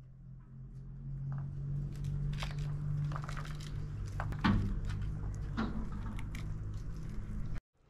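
Pomegranates being torn open and deseeded by hand over a metal tray: the peel cracking and the arils crackling as they break loose, a series of sharp crackles and clicks, loudest about halfway through, over a steady low hum.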